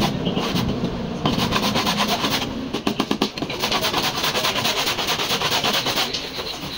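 Rapid, repeated abrasive rubbing strokes on a damaged car body: hand bodywork such as sanding or filing.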